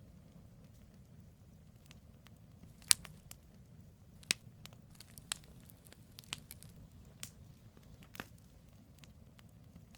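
Campfire of burning firewood crackling: sharp pops at irregular intervals, the loudest about three seconds in, over a low steady rumble.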